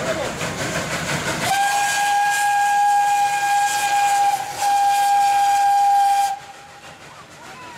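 Steam locomotive whistle blowing one steady note: a long blast of about three seconds, a brief break, then a second blast of nearly two seconds that cuts off suddenly. Voices and hiss are heard before the whistle starts.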